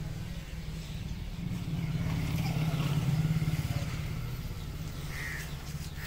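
A motor vehicle's engine running, louder in the middle and then fading, with a crow cawing once near the end.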